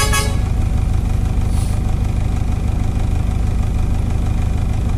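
A vehicle engine idling steadily, heard from inside the stopped vehicle's cab. A short hiss sounds about one and a half seconds in.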